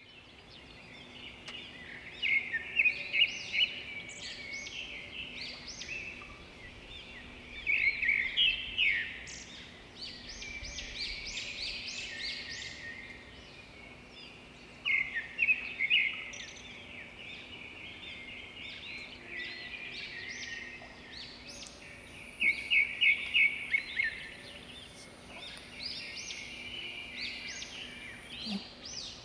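Birds chirping: bursts of quick, high repeated notes every six seconds or so, over a steady outdoor background hiss.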